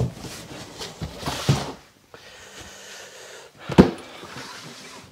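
Cardboard and packing material rustling and scraping for about two seconds while a cardboard box is handled. Then comes one sharp knock, the loudest sound, as the box is lifted off the wooden workbench.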